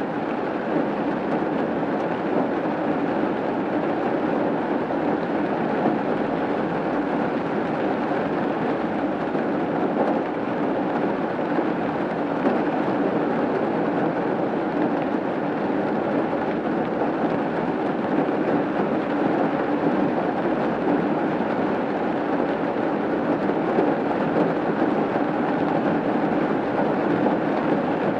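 Steady rain falling on a roof, an even, unbroken noise.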